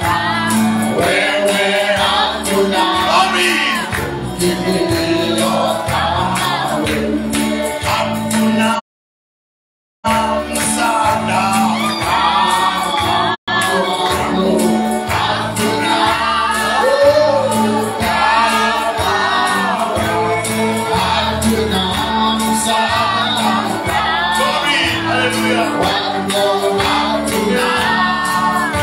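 Live gospel worship music: several voices singing together over a band with a steady beat. The sound cuts out to complete silence for about a second roughly nine seconds in, and for an instant again a few seconds later.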